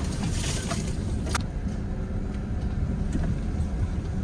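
Inside a pickup truck's cab crawling slowly over a rough, rocky trail: a steady low engine and drivetrain rumble, with a few sharp knocks or rattles, one about a second and a half in.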